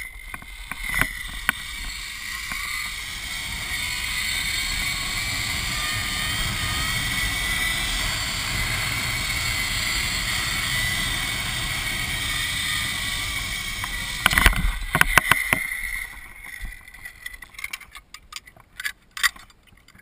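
Zipline trolley pulleys running along a steel cable: a steady whirring rush with a high whine that builds over the first few seconds as the ride gathers speed. About fourteen seconds in a cluster of sharp knocks marks the trolley reaching the end and stopping, followed near the end by scattered metallic clicks of the trolley and gear being handled.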